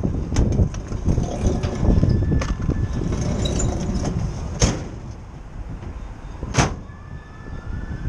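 Sharp clicks and knocks of a pickup's truck-bed storage drawer and the tools in it being handled, two louder ones about halfway and near the end, over a steady low rumble of traffic and wind.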